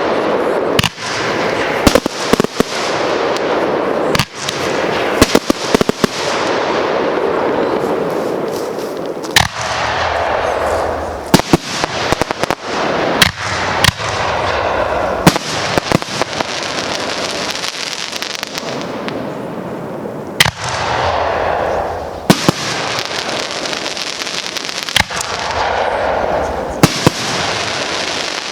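Fireworks show: many sharp bangs at irregular intervals, some in quick clusters, over a continuous hiss that swells and fades every few seconds.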